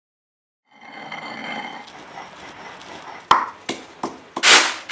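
Stone mortar and pestle: a soft steady hiss of small seeds trickling into the stone bowl. A little over three seconds in, the pestle starts pounding spices in it, with several sharp knocks and then two loud crunching strikes near the end.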